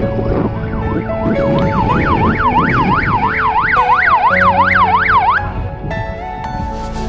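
Ambulance siren sounding a fast rising-and-falling yelp, about three sweeps a second. It begins faintly about a second in, is loudest from about two seconds, and stops abruptly a little after five seconds.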